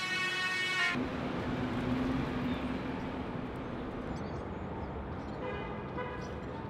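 Music cuts off abruptly about a second in, giving way to city street traffic noise, with a vehicle horn sounding for about a second and a half.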